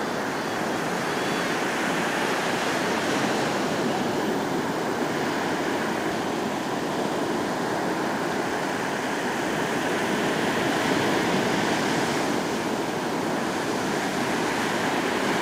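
Ocean surf breaking and washing up the beach: a steady, unbroken rush of water noise.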